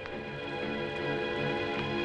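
Background film music: sustained chords held steadily, slowly getting louder.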